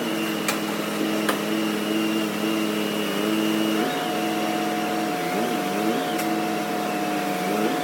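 PACCAR truck transmission making the grinding noise under inspection: a steady cluster of whining tones that shifts in pitch now and then, with a couple of sharp clicks in the first second and a half.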